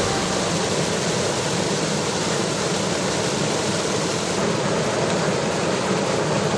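Overflowing stream's water rushing steadily in flood, an even unbroken noise.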